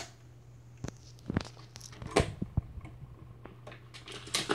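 Symphonic record player starting up for a 78: a steady low motor hum with a scattered series of mechanical clicks and knocks from the mechanism, the loudest knock near the end.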